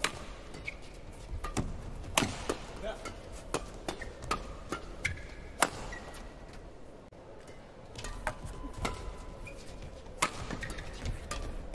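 Badminton rackets striking the shuttlecock in a fast doubles rally, sharp cracks at irregular intervals, with the loudest hits about two and five and a half seconds in. Shoes squeak briefly on the court now and then.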